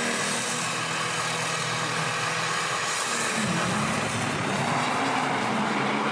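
Compound-turbocharged billet Cummins straight-six diesel in a dragster, running steady on the starting line, then launching about three seconds in; its note dips and climbs as it pulls away down the track.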